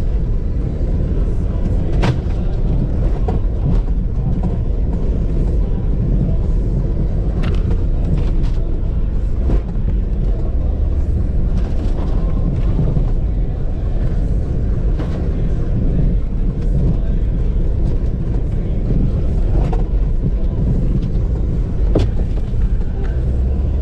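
Land Rover Freelander driving through deep snow, heard from inside the cabin: a steady, loud engine and drivetrain rumble with snow spraying against the body, and sharp knocks every few seconds.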